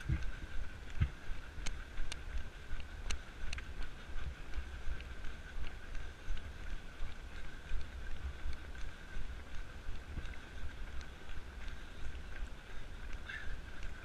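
Running footsteps on a paved road, about three thumps a second, jolting the camera the runner carries, with wind rumbling on the microphone.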